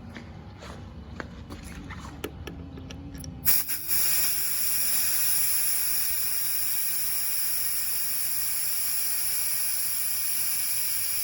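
A few light clicks and knocks, then, about three and a half seconds in, a loud steady hiss of air let out of the 2012 Ford F-150's right rear tire through the valve stem. The tire is being deflated to wake its TPMS sensor for retraining.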